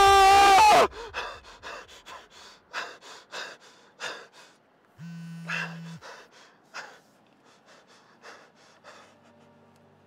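A man breathing hard in ragged gasps and pants, one breath after another, in distress. A loud sustained tone cuts off within the first second, and a one-second electronic buzz sounds about five seconds in.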